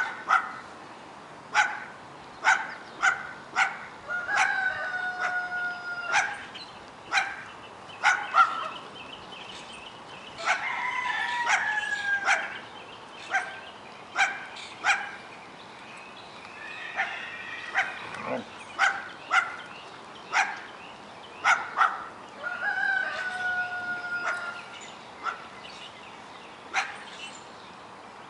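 German Shepherd puppies play-fighting, giving short sharp yips and play barks, one every half second to a second. Three times, a longer drawn-out call is held over them for a second or two.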